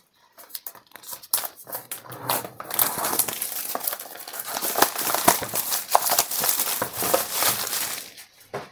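Packaging crinkling and rustling as it is handled, with scattered clicks and knocks. It thickens into a steady crackle about three seconds in and stops shortly before the end, as a product box is pulled out of a shipping carton stuffed with fluffy packing filler.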